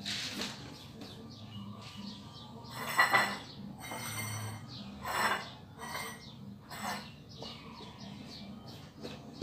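Small birds chirping over and over in the background, with a few louder rattling clatters about three, five and seven seconds in.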